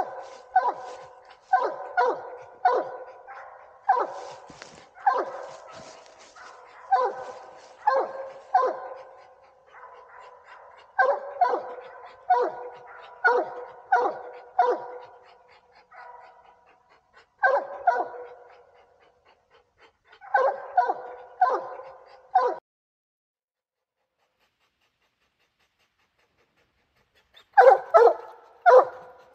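English Redtick coonhound barking treed at the base of a tree, a steady chop of barks about once a second with short pauses, the tree bark that says the raccoon is up that tree. The barking stops for several seconds about two-thirds of the way through, then a quick cluster of barks comes near the end.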